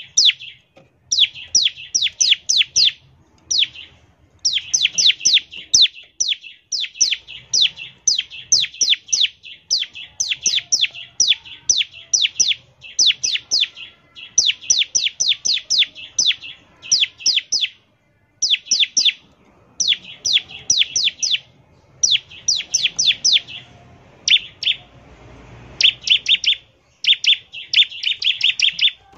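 Bar-winged prinia (ciblek) singing in the rapid 'ngebren' style: fast runs of sharp, high chirps, about five or six a second, in phrases of a second or two separated by short pauses.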